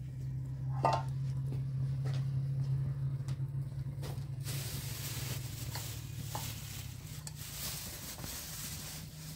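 Metal pan on a small wood fire sizzling. The sizzle comes in suddenly about halfway through, after a few light knocks of small containers being handled.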